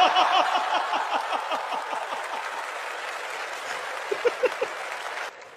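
Theatre audience laughing and applauding at a stand-up comedy punchline, the clapping and laughter slowly dying down, with a last small burst of laughter about four seconds in.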